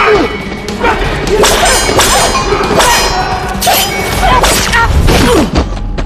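Fight-scene sound effects: several metal weapons clanging together with a ringing after some strikes, mixed with heavy blows and thuds.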